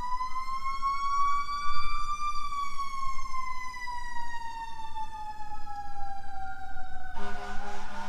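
Fire truck sirens wailing as the trucks pass: one slow rise over about two seconds, then a long, slow fall, with a second siren tone gliding across it. Near the end a lower, choppy blaring tone joins in.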